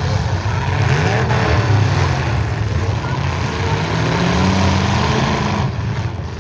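Engines of several stock pickup trucks running and revving together, their pitch rising and falling.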